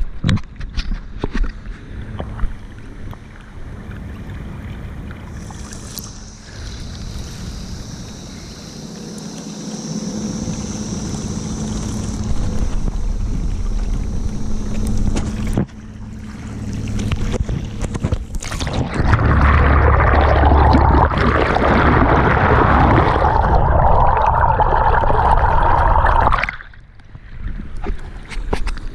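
Motor kayak under way on its battery-powered motor: a steady low hum with a faint high whine and water noise. The sound grows much louder about two-thirds of the way through, then cuts off sharply near the end.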